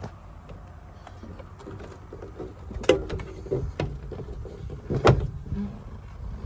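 Metal clunks and knocks from the truck's service-body toolbox compartment doors and latches being handled, with two loud bangs about two seconds apart and smaller clunks between them.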